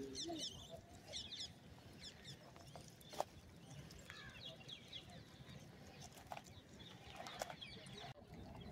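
Faint background of small birds chirping now and then, with a single sharp click about three seconds in.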